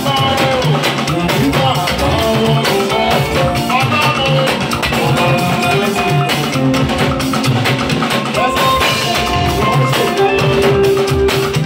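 Loud party music with a steady drum beat, guitar and a singing voice.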